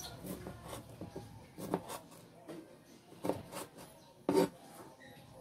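Kitchen knife slicing tomatoes on a plastic cutting board: a few irregular taps of the blade on the board, with soft cutting sounds between them.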